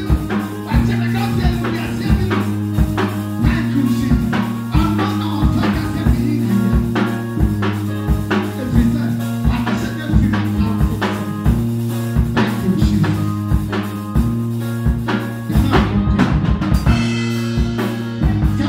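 Live church band music: a drum kit keeps a steady beat over held keyboard notes.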